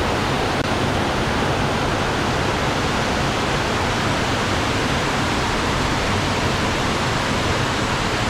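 Loud, steady rush of fast-flowing storm-swollen water.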